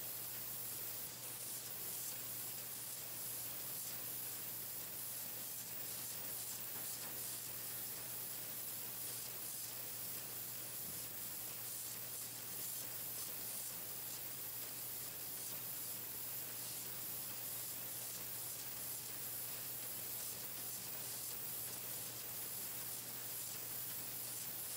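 Pencil-painting machine running, a steady hiss over a low hum.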